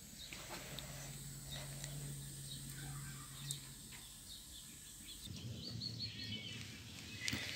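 Quiet rural ambience with faint, scattered small-bird chirps and a few soft clicks, over a low steady hum that stops after a few seconds.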